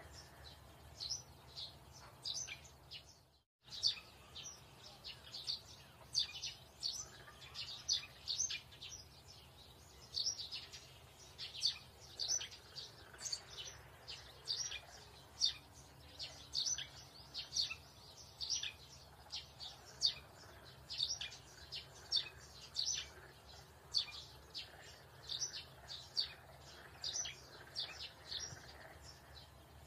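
Small birds chirping: short high chirps come several times a second, with a brief drop-out a few seconds in.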